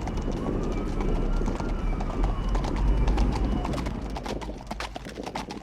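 Horse's hooves clip-clopping in an uneven run of sharp knocks over a steady low rumble, growing a little quieter near the end.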